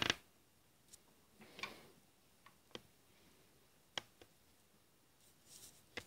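Light clicks and taps of plastic toy construction vehicles handled on a glass tabletop: a handful of separate clicks, the sharpest about four seconds in.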